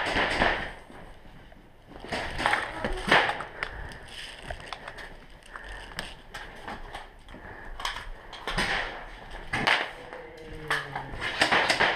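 Footsteps and gear clattering in irregular bunches of knocks and sharp clicks as an airsoft player moves through an indoor course, with a short low voice about ten seconds in.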